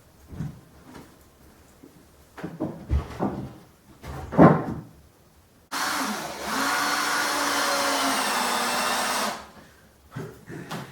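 A few knocks and handling noises, then an electric tool's motor starts abruptly about halfway through, runs steadily for about three and a half seconds and stops.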